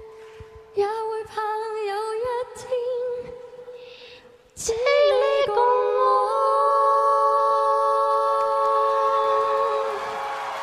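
Male voice singing the song's closing line in Cantonese in a high key, then several overdubbed harmony voices coming in together about four and a half seconds in and holding one long final chord, which dies away near the end.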